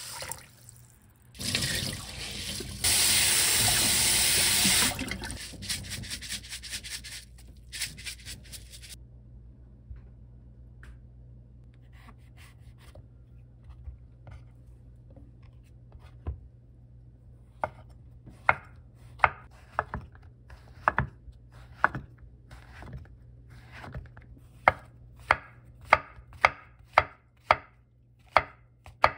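Tap water running into a stainless steel bowl of rice as the rice is rinsed, loudest for a couple of seconds near the start. The water then stops. A kitchen knife slices mushrooms thin on a wooden cutting board, first a few scattered taps, then a steady run of sharp chops about one every half second to second.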